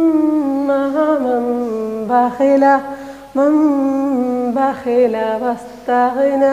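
A woman's voice reciting Qur'anic Arabic in a slow, melodic chant, holding long notes that step between pitches, with brief pauses between phrases.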